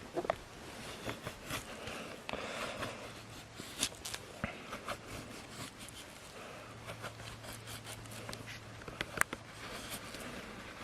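Mora knife shaving thin curls off a stick of wood to make a feather stick: a run of short, irregular scrapes and ticks as the blade slices along the wood.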